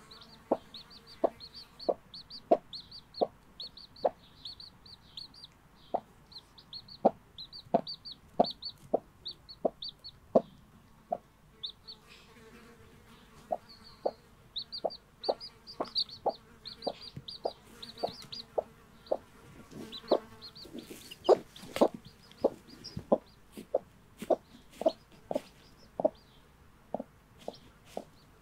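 Brahma hen clucking steadily in short low clucks, about two a second, the contact clucks a mother hen keeps up to her young chicks, while the two-day-old chicks peep in quick, high calls. Both pause briefly about a third of the way in.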